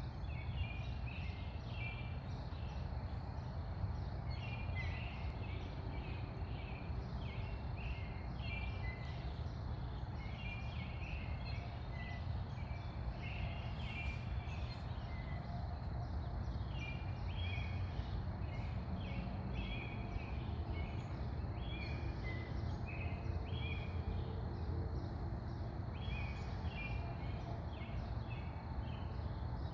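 Outdoor ambience: small birds chirping in short, repeated calls over a steady low background rumble.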